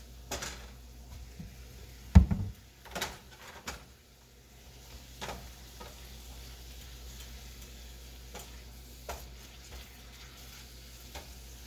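Seasoned chicken sizzling in a frying pan while being stirred with a silicone spatula. A heavy clunk comes about two seconds in, and lighter knocks follow every second or few.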